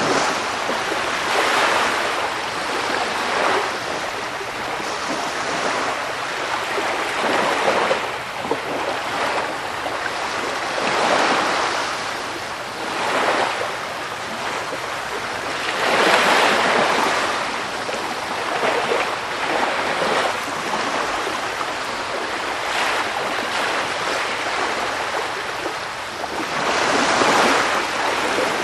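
Sea surf: waves breaking and washing ashore in a continuous hiss, swelling and easing every few seconds, with some wind.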